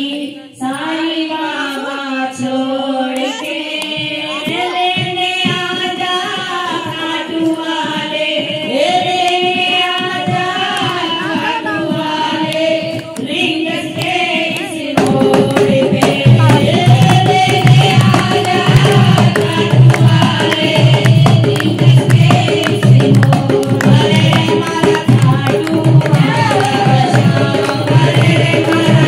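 A woman sings a Hindi devotional bhajan into a microphone, to hand clapping. About halfway through, a hand drum comes in with a steady beat and the music gets louder.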